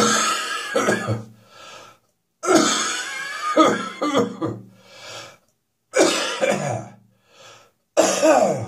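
A person's hacking morning cough coming in repeated fits: four bouts of several harsh coughs each, with short gaps between them, the last fit starting near the end. The cough is becoming slightly drier.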